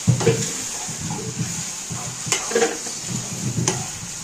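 Food frying in a pan with a steady sizzle, stirred, with a few sharp clinks of a utensil against the pan.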